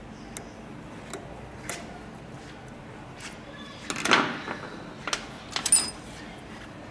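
Small metal clicks and clinks from hand tools and steel parts of a Scania EUI unit injector being worked on: a few light clicks, a short scrape about four seconds in, and a brief ringing metallic clink near the end.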